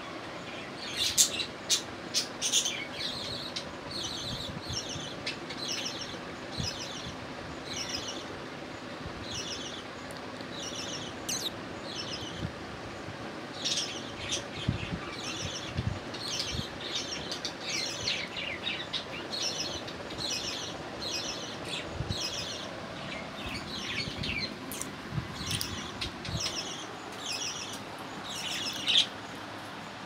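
Budgerigars chirping: many short, high chirps through the whole stretch, coming several a second at times, with a few low bumps in between.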